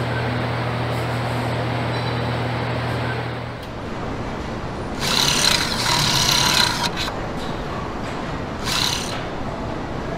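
A steady low machine hum. Then a hand-held pneumatic tool on an air hose runs in two bursts, one of about two seconds and a shorter one about two seconds later.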